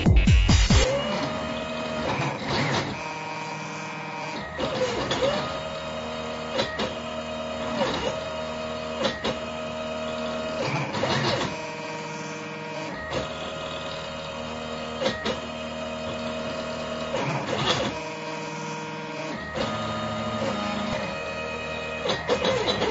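Stepper motors on a CNC router gantry whining as the machine traces out text. The pitch holds steady along each move, glides up and down as the axes speed up and slow down, and each change of direction brings a short click.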